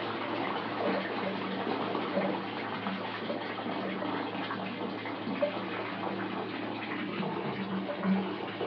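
Bathtub filling: water pouring steadily from the tap into the tub.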